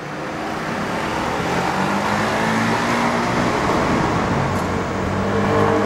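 City road traffic noise fading in, then levelling off to a steady wash of car engines.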